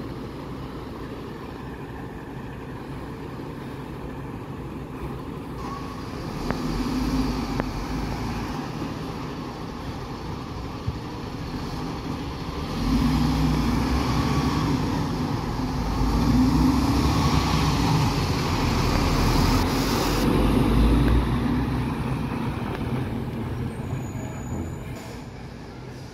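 MAN TGS 26.320 Euro 5 garbage truck's six-cylinder diesel engine running as the truck manoeuvres and pulls away. It pulls louder briefly about a quarter of the way in and again through the middle, then eases off as the truck drives away.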